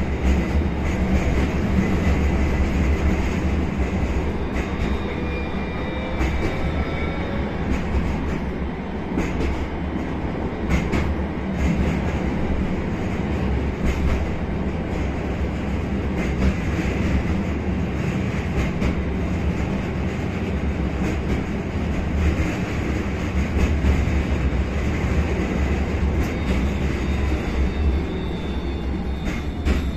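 Tram rolling along its rails, heard from inside the passenger car: a steady rumble of wheels and running gear with scattered clicks and rattles. A faint high wheel squeal comes and goes a few seconds in and again near the end.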